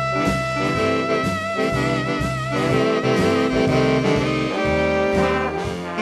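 Background music: a jazz-style instrumental with a horn lead, holding a long wavering melody note over the first half, over steady chords and a bass line.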